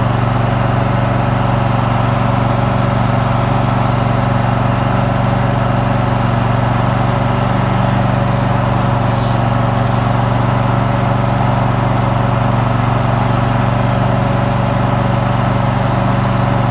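Riding lawn mower engine running steadily at an even speed while the mower is driven along, loud and close.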